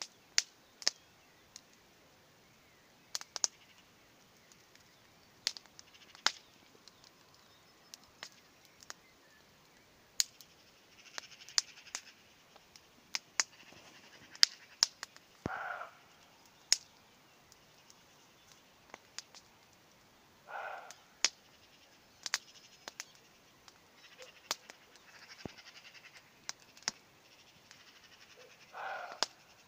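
A distant roe deer barking three times, each a short hoarse bark: about halfway, again some five seconds later, and near the end. Throughout, a campfire crackles with sharp pops, which are the loudest sounds.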